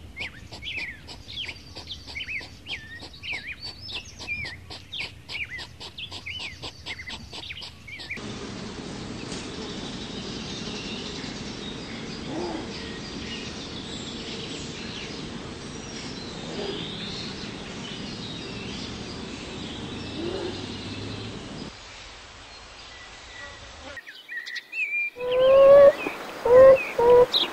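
Small birds chirping and singing in quick, sweeping notes. After about eight seconds this gives way to a steady background hiss with faint bird calls. Near the end comes a run of loud, short pitched animal calls, repeated about once a second.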